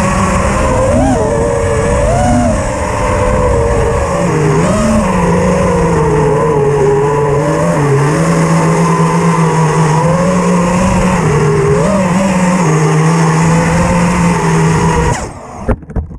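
FPV quadcopter's brushless motors whining in flight over a rush of wind, the pitch wavering up and down as the throttle changes. The sound cuts off about fifteen seconds in, followed by a few short knocks.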